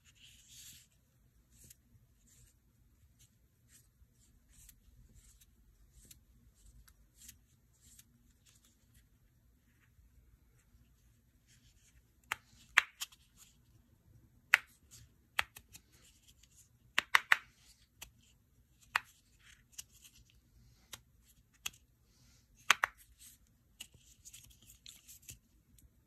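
Handmade leather fidget slider being slid and clicked in the hand: faint scrapes and ticks at first, then from about halfway a series of sharp clicks, several in quick pairs, with a soft leather rustle near the end.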